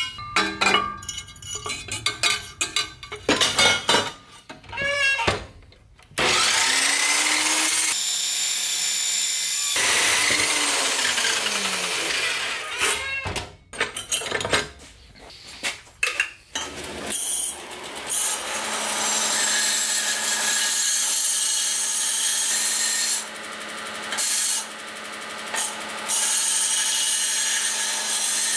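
Clunks and knocks of a steel exhaust tube being set and clamped in a metal-cutting chop saw. About six seconds in, the saw spins up and cuts through the tube with a loud steady noise, then winds down. After more clunks of handling, a belt grinder starts running with a steady hum, grinding the cut end of the tube.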